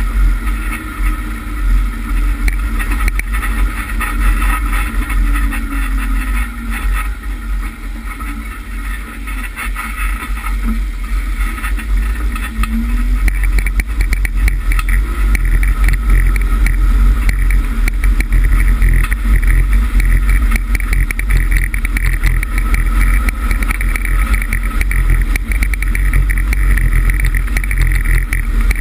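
Lifted Chevrolet Suburban driving off-road: engine running and tyres rolling over grass and then gravel, under a heavy low wind rumble on the microphone. It gets louder about halfway through, once it is on the gravel track.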